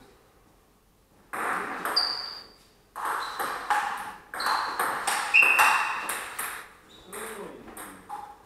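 Table tennis rally: the ball cracking off the rubber-faced bats and bouncing on the table in a quick run of sharp pings. It starts about a second in and goes on to near the end.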